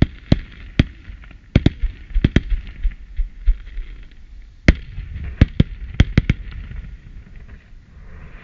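Aerial fireworks bursting: a rapid, uneven run of sharp bangs, a dozen or more, with a steady crackle between them. The bangs thin out about two seconds before the end.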